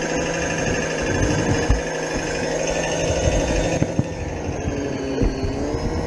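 A 16mm-scale garden railway train running on its track, heard from a wagon it is carrying: a steady rumble with irregular knocks from the wheels on the rails and a wavering hum.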